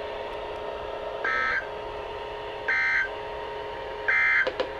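NOAA Weather Radio's concluding SAME data tones, heard through a weather radio receiver: three short, shrill digital bursts about a second and a half apart. They are the end-of-message code that closes the required weekly test.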